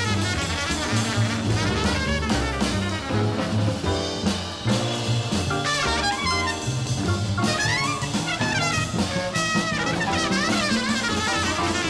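1967 free-leaning jazz sextet recording: saxophones and trumpet playing busy lines that slide up and down over acoustic bass, piano and drums.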